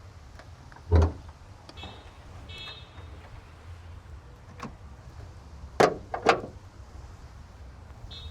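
Ford Focus hood being opened: a heavy thump about a second in, then two sharp clunks half a second apart, typical of the hood release and safety latch letting go.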